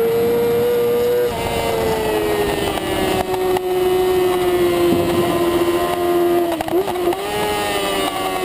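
Onboard sound of a middleweight supersport race motorcycle's engine running hard at high revs. Its pitch holds steady, then falls slowly through a long corner in fourth gear. About seven seconds in comes a brief wobble in pitch as the rider downshifts toward second gear.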